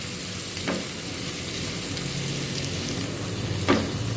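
Chopped garlic, ginger and cumin seeds with turmeric sizzling in hot oil in a kadhai while a spatula stirs them, the spatula knocking against the pan twice, about a second in and near the end.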